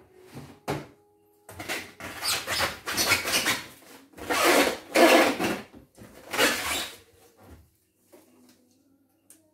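Packing material rustling and crinkling in irregular loud bursts as a machine is unpacked from a cardboard box, after a couple of sharp clicks at the start.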